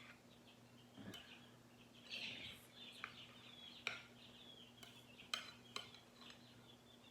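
Faint, scattered clinks of cutlery against a plate while a layered omelette is cut and served, about half a dozen light clicks a second or so apart.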